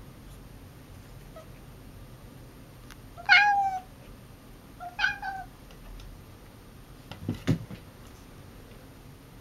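Bengal cat giving two short meows about a second and a half apart, the first the louder. A brief low-pitched sound follows about two seconds later.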